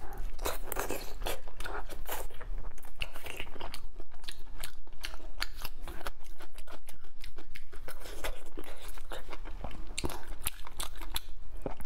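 Close-miked chewing and biting of braised meat in chili oil: a steady run of short crunching clicks and mouth smacks.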